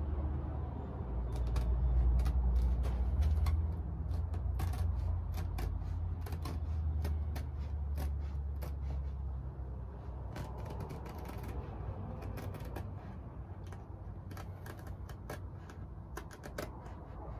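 Small scissors snipping through canvas tent fabric: a run of short, sharp snips and clicks, with a low rumble underneath that is strongest in the first few seconds.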